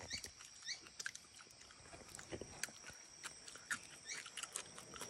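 Jungle insects keeping up a steady high-pitched drone, with scattered faint clicks and crackles and a few short falling chirps about half a second in.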